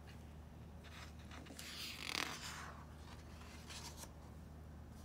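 A page of a picture book being turned by hand: a soft paper rustle and swish about two seconds in, with a faint brush of paper a little later.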